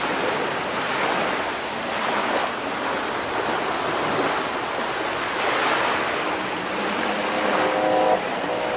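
Ocean surf washing onto a beach: a steady rushing wash that swells gently every second or two as waves come in.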